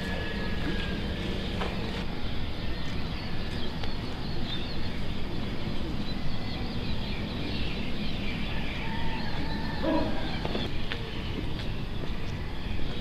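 Many small birds chirping and twittering over a steady outdoor background rumble.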